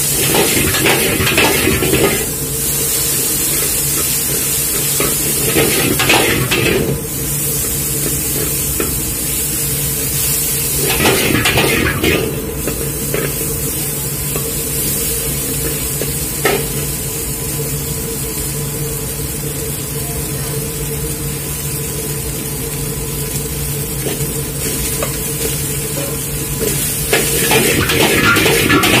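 A metal ladle scraping and knocking against a wok as egg and vegetables sizzle in a stir-fry, over a steady hum. The ladle strokes come in clusters and are busiest near the end.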